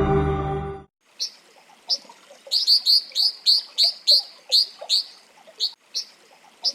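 Ambient music ends within the first second; then brown dippers give short, sharp high-pitched calls, a few singly at first, then in quick runs of about four a second.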